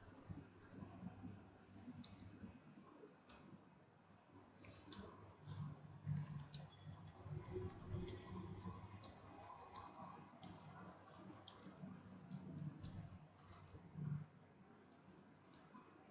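Faint, irregular clicks of typing on a computer keyboard, thickest in the middle, against low room tone.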